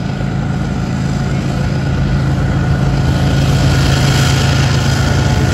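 Diesel locomotives at the head of an approaching freight train running, a steady low engine drone that grows gradually louder.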